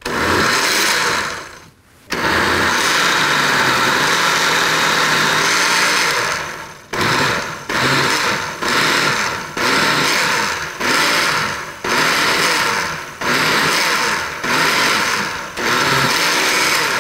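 Glass-jar countertop blender puréeing cooked red peppers and vegetables with chicken stock. After two short starts it runs steadily for several seconds, then is pulsed on and off about a dozen times.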